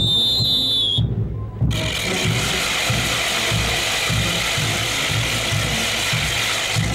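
Dancers' hand-held wooden ratchets (matracas) whirled together in a dense rattling rasp that starts about two seconds in, over band music with a steady low beat. A whistle blows briefly at the start.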